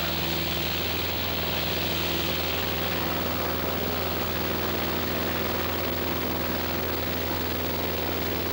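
Cessna's engine and propeller running steadily, a constant drone heard from inside the cabin.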